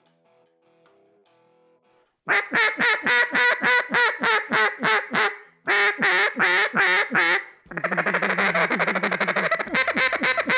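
Double-reed duck call blown in mallard quacks: a run of about a dozen quacks, a short pause, a shorter run, then a fast rapid chatter like a feed call.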